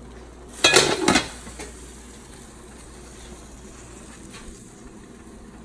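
Metal cookware clattering: a quick cluster of clanks about a second in, then a couple of fainter knocks, over a steady low kitchen background.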